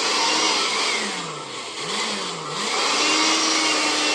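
Handheld car vacuum cleaner running from a battery: a steady motor and airflow noise, its tone wavering up and down as it sucks up debris from a table.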